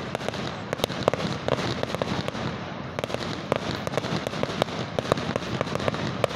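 Fireworks display: many sharp pops and bangs in quick, irregular succession from bursting shells, over a continuous crackling noise.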